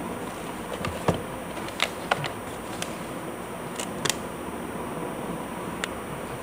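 Baseball caps being handled by hand on a tabletop: several short sharp taps and clicks as a cap and its brim are set down and turned, over a steady background hiss.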